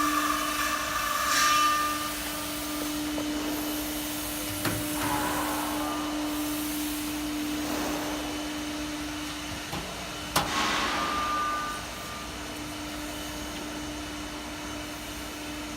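Steady machine hum over a hiss, with one sharp click about ten seconds in.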